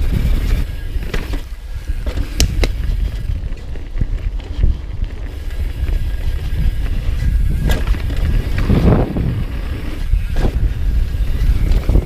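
Downhill mountain bike riding fast over a dirt trail: wind rumbling on the microphone, tyres on loose dirt, and scattered sharp clicks and rattles as the bike hits bumps.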